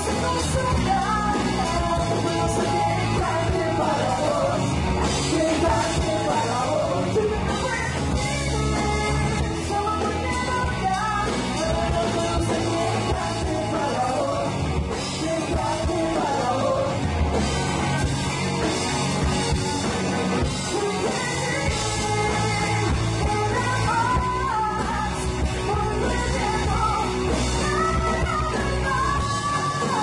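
Live rock band playing: a woman singing lead over electric guitar, bass guitar and drums.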